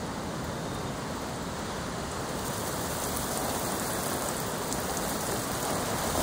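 Steady rain falling on a garden and wet stone patio, a dense, even hiss that grows a little louder about two and a half seconds in.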